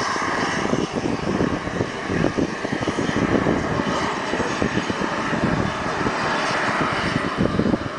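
The engine of a radio-controlled MiG-29 model jet runs with a steady whine as the model rolls away down the runway, with wind buffeting the microphone.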